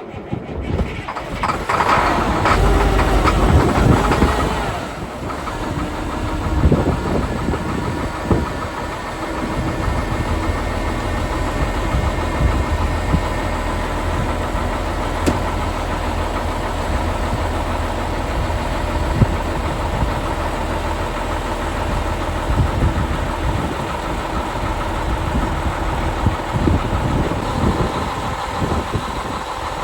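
Heavy-spec truck's diesel engine starting up about a second in, running loudly for a few seconds, then settling into a steady idle.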